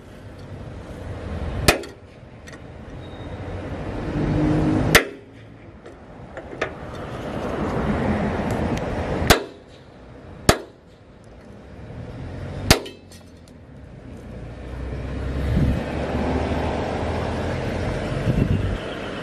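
A hammer striking a hand-held steel punch against a steel crane part: five sharp metallic clangs a few seconds apart, two of them close together about halfway through, with steady background noise between blows.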